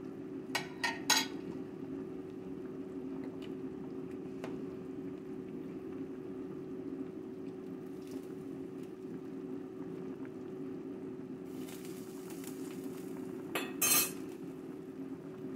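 A metal spoon clinks against a ceramic plate and bowl, a few quick clinks about a second in and a louder pair near the end, over a steady low hum and a pot of soup boiling on the stove.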